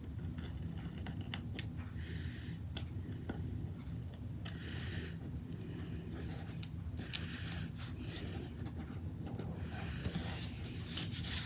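X-Acto craft knife cutting through paper in short scratchy strokes a couple of seconds apart, with a few small clicks, over a steady low hum. The blade is one she thinks is getting dull.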